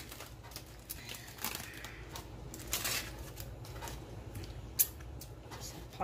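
Aluminium foil packets being handled and opened: faint crinkling and rustling with scattered small clicks and taps, and one sharper click a little before the end.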